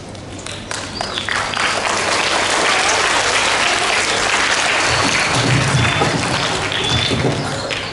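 Audience applauding, swelling about a second in and fading near the end.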